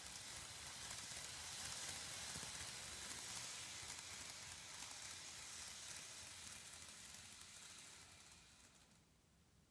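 N gauge model train running past on its track: a faint, steady rushing hiss of the wheels and running gear on the rails, fading away near the end as the train moves off.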